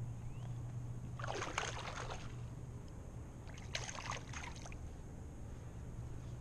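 Water splashing and sloshing beside a kayak as a hand dips into it, in two short bursts about two seconds apart.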